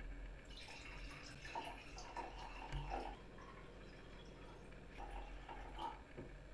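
Red wine being poured from a glass bottle into a stemmed wine glass: a trickle starting about half a second in, with a few glugs from the bottle neck.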